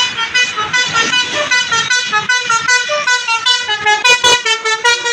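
A bus's Basuri telolet multi-tone horn playing a fast melody of short notes that change pitch several times a second.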